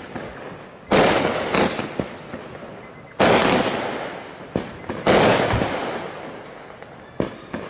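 A 500-gram consumer fireworks cake firing its shots: three loud shell bursts about two seconds apart, each with a long echoing tail, and smaller pops between them. A few light crackles follow near the end.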